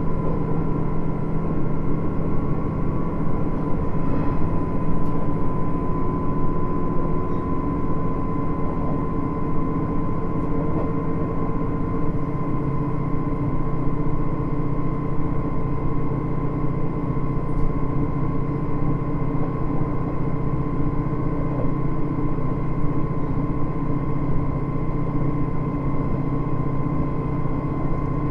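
Interior running sound of a KiHa 110 series diesel railcar: its diesel engine drones steadily under the floor over the rumble of wheels on rail, with a steady high whine above it.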